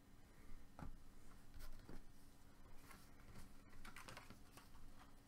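Faint, irregular clicks and light rustles of trading cards being handled and slid against one another.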